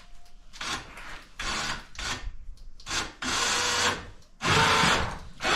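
Harbor Freight 2,500 lb electric winch run in short bursts of about a second, straining against a 1200 lb fishing magnet that is still holding fast to the steel.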